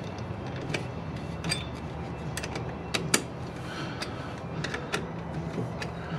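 Metal clicks and clinks of a wrench on a truck battery terminal bolt as the cable clamps are tightened, a few scattered sharp ticks over a steady low hum.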